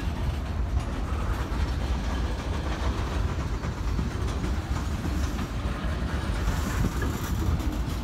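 Freight train of tank cars rolling past on the near track: a steady rumble of steel wheels on the rails.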